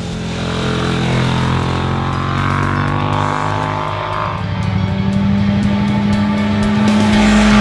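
Super-naked sports motorcycle engines running hard through bends. The engine note falls over the first few seconds as a bike slows into a corner, then holds a steady pitch. Rock music plays underneath.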